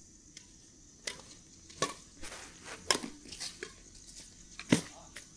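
Sharp, separate hits of a rally being played, roughly one a second, with a few fainter knocks in between.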